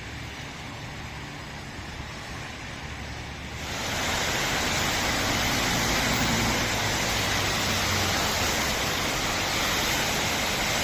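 Steady hiss of heavy rain, stepping up louder about four seconds in.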